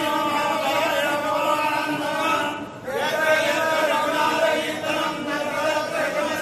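A group of voices chanting in unison, holding long notes, with a short pause for breath about two and a half seconds in.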